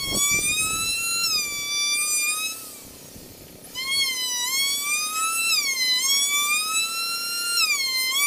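Handheld electric trim router cutting along the top edge of a wooden bed-frame board: a high whine whose pitch dips and recovers as the bit takes load. It stops about two and a half seconds in and starts again about a second later.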